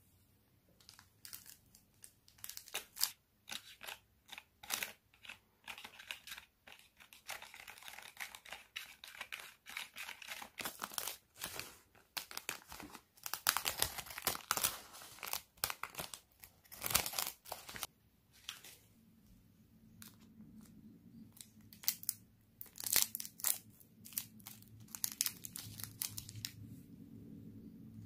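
Thin plastic candy-kit packets crinkling and crackling as they are handled and emptied, with scissors snipping through a plastic bag around the middle. An irregular run of crackles and snips, densest through the middle and sparser near the end.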